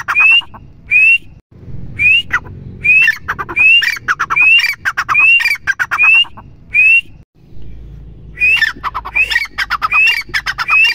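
Grey francolin (teetar) calling: a loud, harsh phrase with a short rising note, repeated about twice a second in runs that break off briefly twice.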